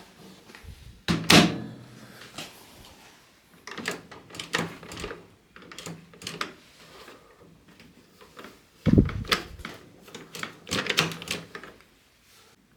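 Plastic clicks and rattles from a microwave's door latch parts being handled and fitted, with two heavier knocks, about a second in and again about nine seconds in.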